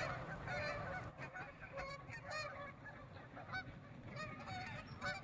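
A flock of geese honking: many short, overlapping calls, faint and steady in number throughout.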